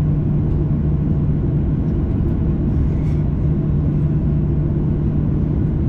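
Boeing 737-900ER's CFM56 jet engines running at idle before takeoff, heard inside the cabin as a steady low drone with a steady hum through it.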